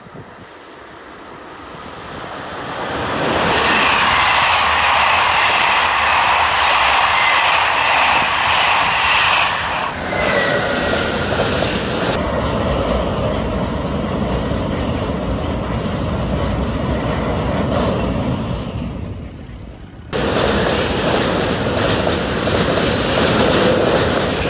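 Freight train of tank wagons passing close below, hauled by a locomotive. The sound swells over the first three seconds as the locomotive nears, with a steady high-pitched whine over the rumble for several seconds, then gives way to the even rolling of the tank wagons' wheels on the rails.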